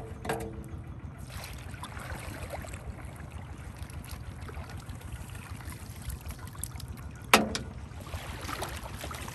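Shallow muddy water splashing and trickling as a plastic basket is moved through it, over a steady low rumble. A single sharp knock about seven seconds in is the loudest sound.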